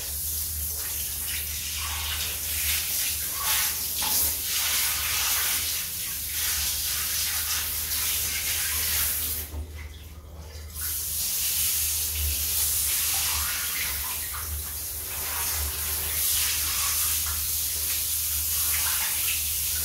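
Handheld shower head spraying water onto a Rottweiler puppy's hind legs and splashing on the floor, a steady hiss that stops briefly about halfway through. The legs are wetted first so the dog gets used to the cool water before its body is wet.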